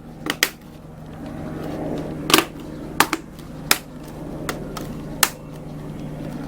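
Plastic clips of an Asus X550Z laptop keyboard snapping into place as it is pressed down: about six sharp clicks at uneven intervals, over a steady low hum.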